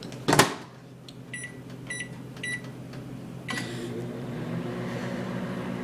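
Microwave oven door knocked shut, then three short keypad beeps as the time is entered; a moment later the oven clicks on and runs with a steady hum.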